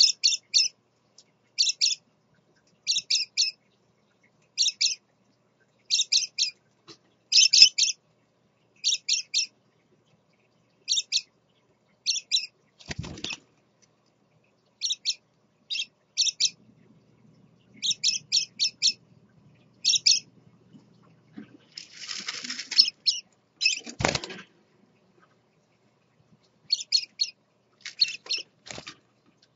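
Scarlet-chested parakeets giving short, high chirps in quick groups of two to four, repeated every second or two with a few pauses. A brief flutter of wings comes about three-quarters of the way through, and there are two dull thumps, one near the middle and one just after the flutter.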